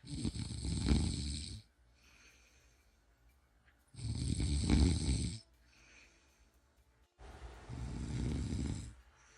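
A person snoring: three long, loud snores about three and a half seconds apart, each lasting about a second and a half, with much fainter breaths between them.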